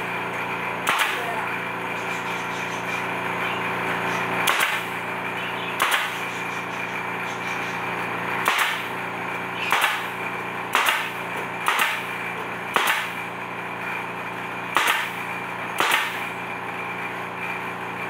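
Pneumatic nail gun firing about ten times at uneven intervals of one to three seconds, each shot a sharp crack as it drives a nail through a wall panel into the wooden frame, over a steady hum.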